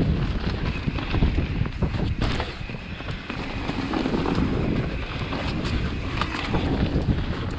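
Mountain bike riding fast down a dirt flow trail: wind buffeting the microphone over a steady rumble of tyres on dirt, with the bike clattering in sharp clicks and knocks over the bumps.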